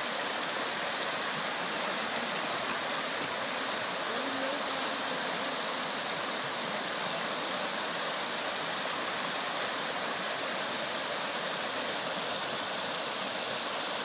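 Shallow rocky stream rushing steadily over stones.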